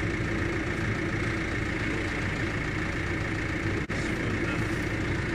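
Engine idling steadily, with a momentary break in the sound about four seconds in.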